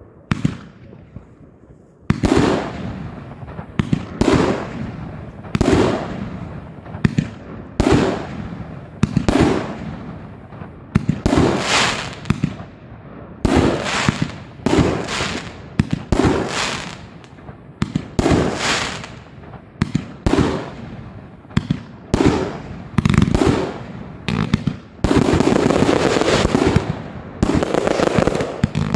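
Klasek F2/F3 consumer fireworks compound cake firing a steady series of shots, about one loud bang a second, each with a fading tail. About 25 seconds in, dense crackling fills in between the bangs.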